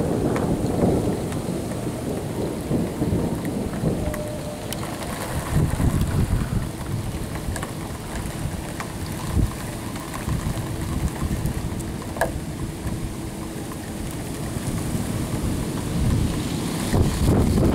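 Thunder rolling and rumbling low through a snowstorm (thundersnow), swelling near the start and again near the end.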